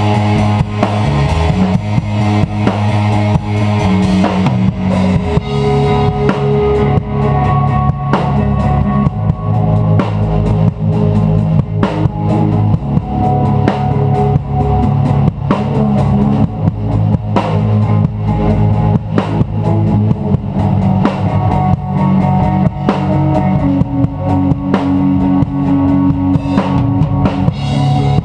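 A rock band playing live, with a drum kit heard up close and hit steadily, cymbals included, over electric guitars.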